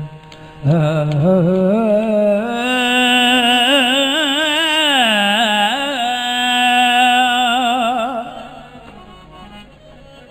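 A man's voice singing one long, wavering held note in Saraiki dohray folk style, without words. It starts just under a second in, bends up and down through ornaments in the middle, and fades out after about eight seconds.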